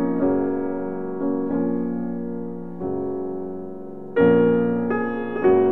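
Background piano music: chords struck one after another, each left to ring and fade before the next.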